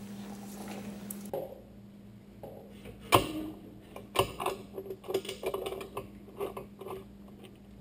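Hand wrench tightening the bolts on a motorcycle's slip-on muffler mount: scattered metallic clicks and clinks. The sharpest comes about three seconds in, and a quicker run follows between about five and seven seconds, over a faint steady hum.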